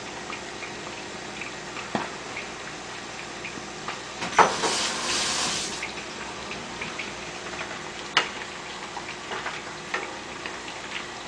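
Chicken deep-frying in a pot of oil: a steady sizzle with scattered small crackles. Two sharp knocks, and a loud hiss lasting about a second and a half about four seconds in.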